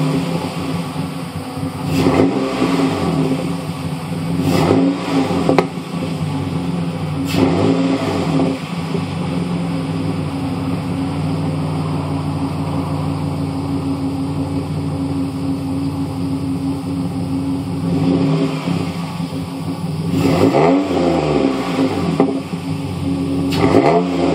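Truck engine heard at the exhaust tailpipe, idling steadily and revved in short blips: several in the first eight seconds, then a longer rev and another blip near the end.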